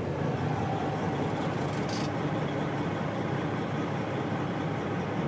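Detroit Diesel Series 60 14-litre inline-six diesel idling steadily, freshly started, heard from inside the closed truck cab. A brief hiss comes about two seconds in.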